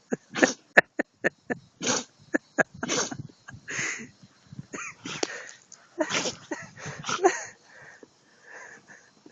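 A husky sneezing over and over: a fast run of short, sharp sneezes in the first few seconds, then a few longer, breathier ones.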